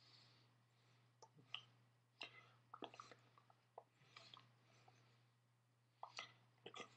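Near silence: a steady low hum with scattered faint clicks and smacks from a person's mouth and hands while signing.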